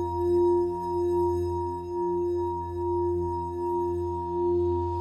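Ambient background music of sustained drone tones in the manner of a singing bowl, swelling and fading slowly about once a second.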